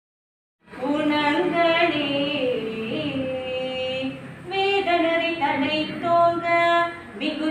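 Unaccompanied female devotional singing in long held and gliding notes, starting after a short silence.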